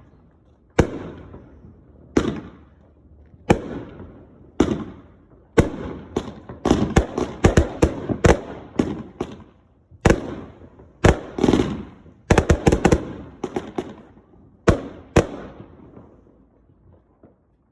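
Consumer firework cake firing: a string of sharp bangs, each trailing off in an echo. They come singly about a second apart at first, then in rapid clusters in the middle, and die away near the end.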